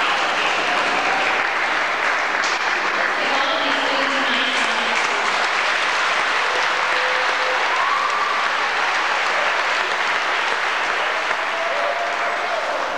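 Audience applauding steadily, with a few voices calling out faintly over the clapping.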